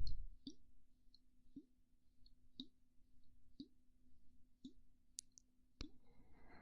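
Faint, soft mouth clicks as an ASMR trigger, about one a second, over a faint steady hum.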